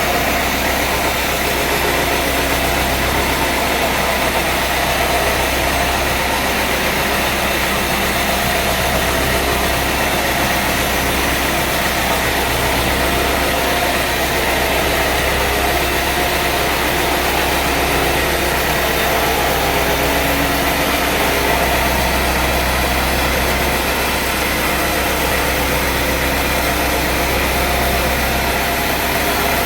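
Sawmill machinery running steadily: an engine-driven hum with dense mechanical noise at an even, loud level.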